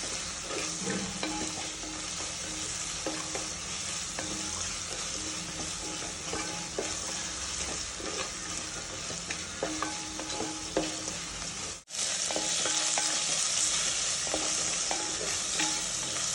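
Crushed small onions and garlic sizzling in hot oil in a pan, stirred with a spoon that clicks now and then against the pan, as they sauté soft. The hiss is steady and breaks off for an instant about twelve seconds in, coming back slightly louder.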